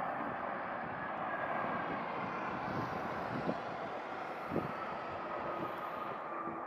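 Jet airliner landing: a steady engine roar with a faint whine that slowly falls in pitch. Two dull thumps come about halfway through.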